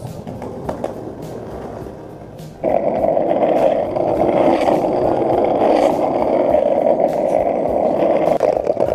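Skateboard wheels rolling over asphalt, a loud steady rumble that starts suddenly about two and a half seconds in, with a pop song playing underneath.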